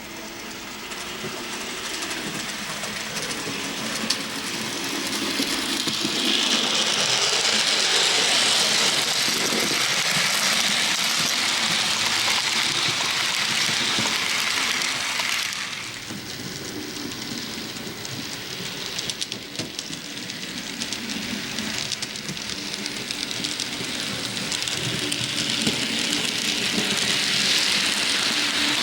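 Model train without onboard sound rolling along the track: the steady rolling hiss and rumble of its wheels on the rails builds as it approaches, stays loud, drops off suddenly about halfway, then swells again toward the end, with a few clicks over rail joints.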